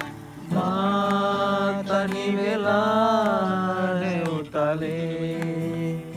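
Voices singing a Sinhala song in long held notes to a strummed acoustic guitar.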